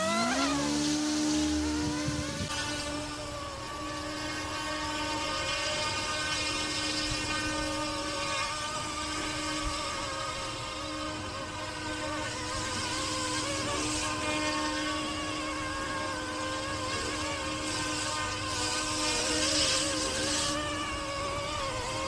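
Electric RC helicopter (YXZNRC F09-S) finishing its spool-up with a quick rising whine, then running steadily: a constant motor whine and rotor hum whose pitch wavers slightly as it flies.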